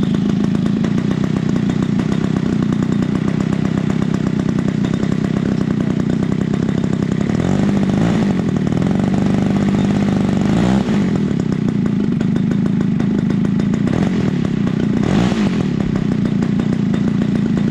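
EME 60 gas engine of a radio-control model airplane running on its propeller, just started. It runs steadily, is throttled up and back down for a few seconds past the middle, and is blipped briefly again near the end.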